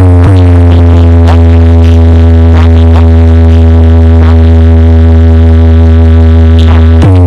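Loud, sustained synthesized bass tone held on one low pitch, with a sweep down in pitch just after the start and again near the end and faint ticks along the way: a DJ sound-check bass track.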